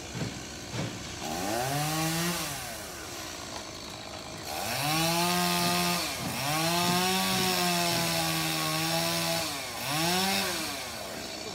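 Stihl chainsaw revving in bursts: a short rev about a second and a half in, then a long stretch at high revs from about four and a half seconds with a brief dip partway, and another short rev near the end, dropping back to a lower speed in between.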